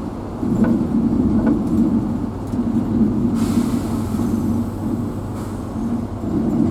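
Vehicle engine running, heard from inside the cab, with a low drone that swells and eases as it drives. A brief hiss comes about three and a half seconds in.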